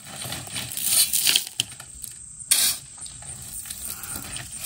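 Steel shovel scraping and scooping gravel in a pickup truck bed, the stones rattling as they shift and pour. The loudest scrapes come about a second in and again about halfway through.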